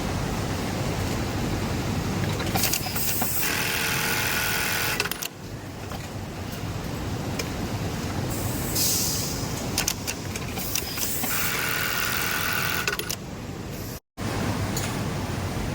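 Industrial sewing machines on a garment factory floor, running in several stretches of a couple of seconds each over a steady background din, with scattered clicks. The sound cuts out for a moment near the end.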